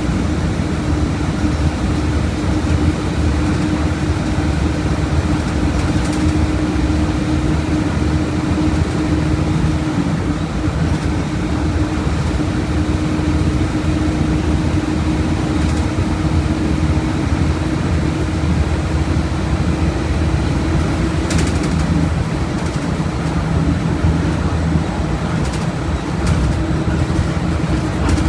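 Volkswagen Volksbus 17.230 OD bus diesel engine running steadily with a constant hum and low rumble, its pitch dipping slightly about two-thirds of the way through and coming back up near the end.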